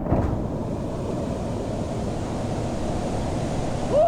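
Steady rushing roar of a waterfall crashing into its plunge pool, with a brief rising cry near the end.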